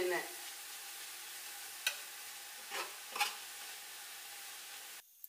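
Shredded cabbage and carrot sizzling in oil in a large aluminium pot, stirred with a spatula that scrapes the pot a few times about two to three seconds in. The sizzling cuts off suddenly near the end.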